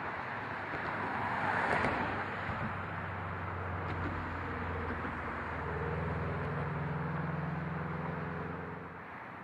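Steady vehicle and traffic noise, swelling as something passes about two seconds in. A low engine hum then holds steady and fades out near the end.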